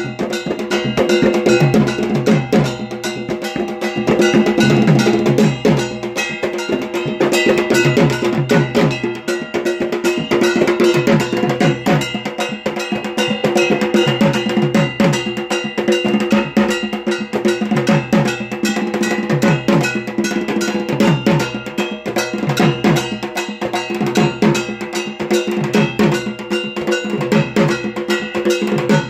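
Puja drumming: a drum beats groups of quick strokes that drop in pitch, repeating every second or two, while a struck metal gong clangs steadily along with it.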